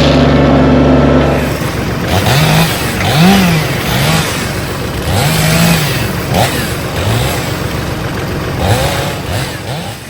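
An engine running steadily at idle; then, about a second and a half in, an engine revved up and down again and again, each rev a quick rising-then-falling whine.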